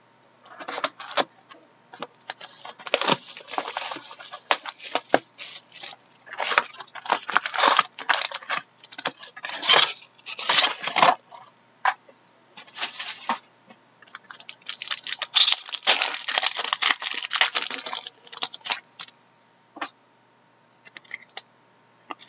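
Trading card packs being torn open and the cards handled: irregular bursts of crinkly wrapper tearing and rustling, with small clicks as cards are sorted and stacked.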